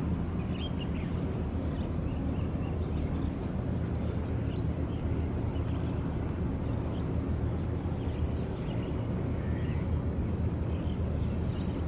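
Steady low rumble of a large container ship under way close by, its engine droning without change, with a few faint high chirps over it.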